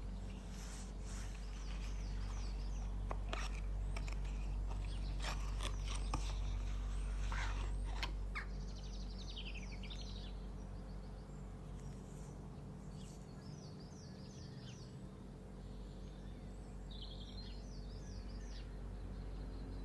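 Small birds chirping in short repeated phrases over a steady low hum, with scattered clicks and rustles in the first half.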